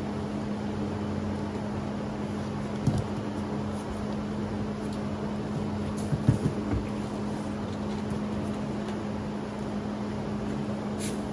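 Steady machine hum with a low, even drone, broken by a dull thump about three seconds in and a short cluster of thumps around six seconds in.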